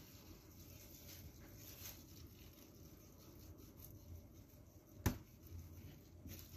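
Knife slicing through a nori-wrapped sushi roll on a plastic-wrapped wooden cutting board, faint, with one sharp knock of the blade on the board about five seconds in.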